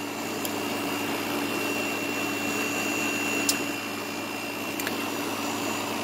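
Kool King window air conditioner running out of its case, its compressor and fan both on: a steady rush of moving air with a constant low hum and a thin high whine, slightly noisier with the cover off. A few faint ticks sound over it.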